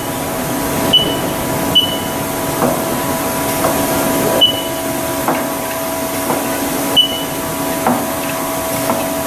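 Four-station automatic turret toolpost of a Haas TL-2 CNC lathe being indexed, its mechanism giving a run of sharp clicks and short high chirps about a second apart over the machine's steady hum.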